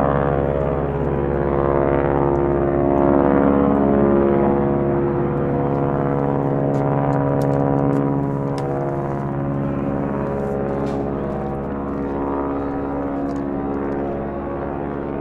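B-1B Lancer's four turbofan jet engines running during its landing roll on the runway: a steady buzzing jet tone with a sweeping, phasing whoosh, slowly fading.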